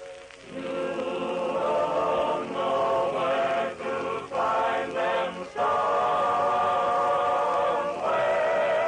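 Vocal group singing a slow western song in close harmony, with wavering sustained chords broken by short pauses between phrases and one long held chord in the middle. The sound is an old radio-transcription recording.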